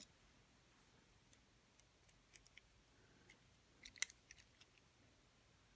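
Faint, scattered light clicks, about a dozen over a few seconds with the loudest about four seconds in: lock-picking rakes, tensioner and lock being handled between attempts.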